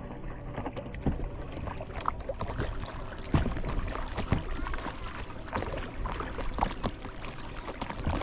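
Paddling on a lake: irregular splashes and drips of water from the strokes, over a steady low rumble.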